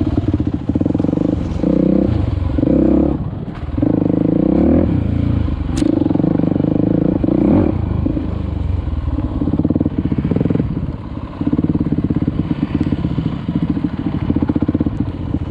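Dirt bike engine under a rider on a trail, pulling hard on the throttle in long stretches and briefly backing off three times. It is running strongly; the rider says it has never run better, which he thinks could be down to a newly changed spark plug.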